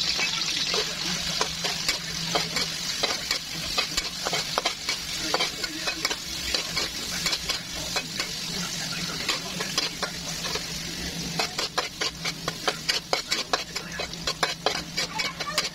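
Chopped onion, garlic and ginger sizzling in hot oil in a wok, a steady hiss, while a metal spatula stirs them, scraping and tapping against the pan. The taps come more often near the end.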